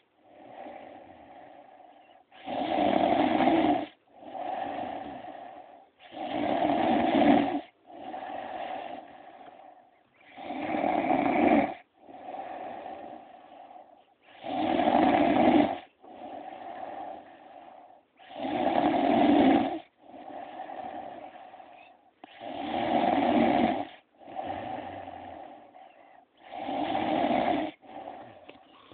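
A woman snoring in her sleep. There is a loud snore about every four seconds, with a softer breath between each pair.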